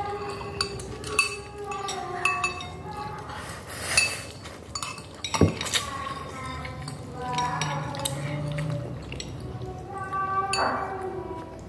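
Metal forks and spoons clinking and scraping against ceramic bowls of noodles in a run of irregular light clinks, with one louder knock about five seconds in.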